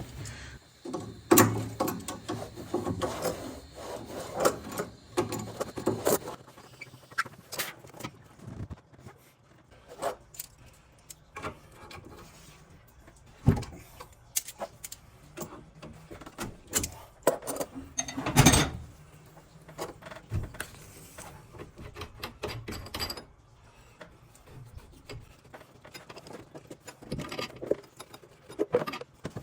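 Hand tools and metal plumbing fittings being handled: irregular clicks, clanks and scrapes, with a couple of louder knocks about 13 and 18 seconds in.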